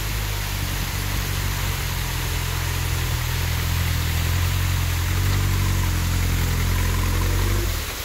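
Rock crawler buggy's engine running at low revs as it crawls up a rock ledge, over the rushing hiss of a small waterfall. The engine note swells slightly partway through and drops away sharply just before the end.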